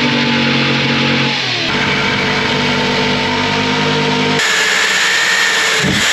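Corded jigsaw running and cutting through a wooden butcher-block countertop, heard in short edited clips with abrupt changes in the motor's pitch, then an electric drill with a hole saw boring into the wood near the end.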